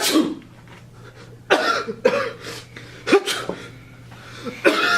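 A person sneezing and coughing in repeated loud, sudden bursts, about four in five seconds.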